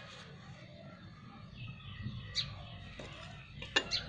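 Faint bird chirps in the background, with two short sharp clicks, the louder one near the end.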